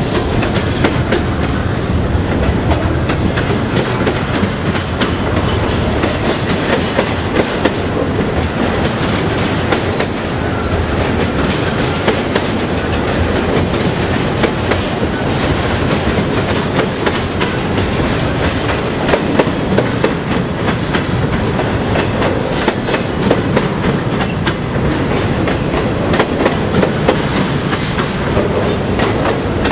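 Double-stack intermodal freight train rolling past: the steel wheels of the loaded container well cars clack over rail joints in a steady rumble.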